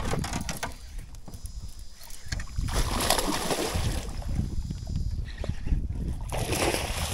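Hooked fish thrashing and splashing at the water's surface beside the boat as it is brought in to be grabbed. There are two bursts of splashing, about three seconds in and again near the end.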